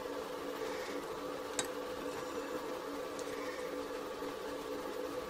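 Small parts of a disassembled Kelvin clip being handled, with one light click about a second and a half in, over a steady background hum.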